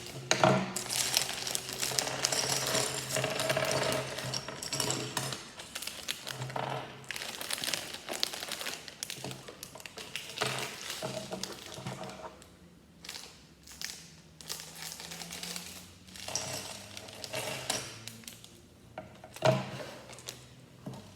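Small plastic Lego pieces rattling and clattering as the set's box and parts bags are handled, with many irregular clicks, crinkling of plastic and a couple of sharper knocks.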